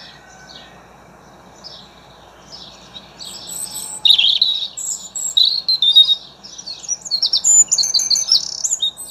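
Small birds chirping and tweeting in quick, high calls, sparse at first and becoming a busy, overlapping chorus from about three seconds in.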